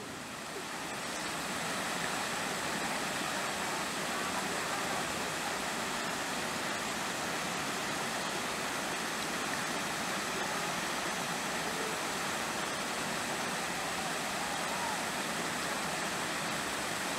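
Steady, even rushing outdoor noise with faint distant voices.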